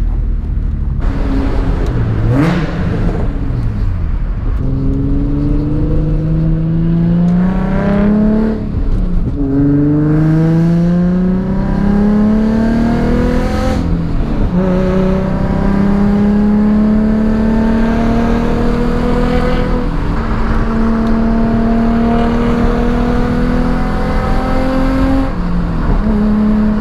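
Nissan 350Z's 3.5-litre V6 pulling away and accelerating through the gears: the engine note climbs, drops at an upshift about eight seconds in, climbs again, drops at a second upshift about fourteen seconds in, then holds a steady cruising note.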